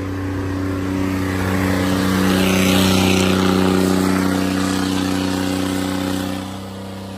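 Tractor diesel engine running at high, steady revs under load in a tug-of-war pull. It grows louder over the first few seconds, then eases off about six and a half seconds in.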